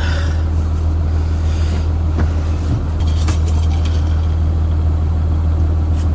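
2011 Ram 4500's emissions-deleted 6.7-litre Cummins diesel engine running with a steady low drone.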